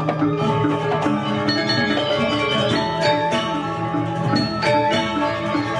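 Balinese gong kebyar gamelan playing a tabuh kreasi: bronze metallophones ringing in quick runs of notes over held tones, with bamboo suling flutes and kendang drums.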